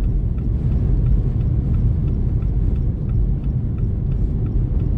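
Steady low road and engine rumble heard inside a car's cabin while driving, with the hazard-light flasher ticking at an even pace over it.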